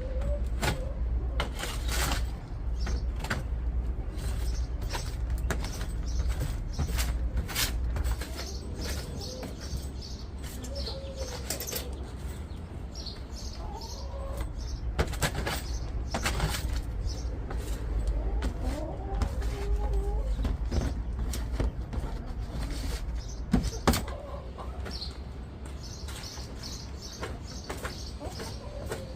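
Small birds chirping now and then over a steady low rumble, with scattered sharp clicks and knocks.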